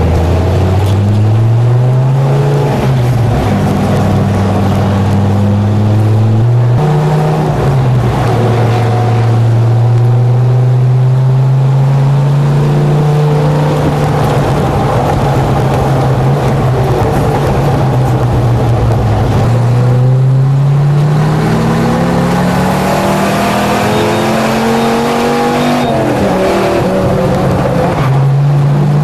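Pickup truck's engine under hard driving on a race track, heard from the truck bed. Its pitch climbs and drops sharply at gear shifts in the first seconds, holds steady for a long stretch, then climbs again and drops once more near the end.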